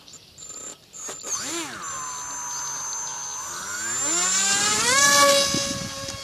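Electric motor of a homemade foam RC jet model spinning up under throttle: a whine that rises briefly, holds, then climbs steeply in pitch and loudness about four to five seconds in and holds steady at high speed.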